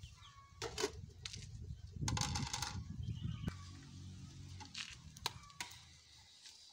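Clinks and knocks of plates and cooking pots being handled while food is dished up, with a short scraping rattle about two seconds in and a sharp single clink a little later.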